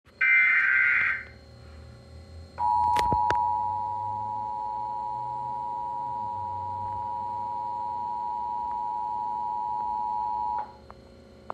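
Emergency Alert System broadcast from a DASDEC encoder. It opens with a one-second burst of the SAME digital header, a harsh warbling data screech. After a short gap comes the EAS two-tone attention signal, 853 and 960 Hz sounded together, held steady for about eight seconds, with two sharp clicks just after it starts.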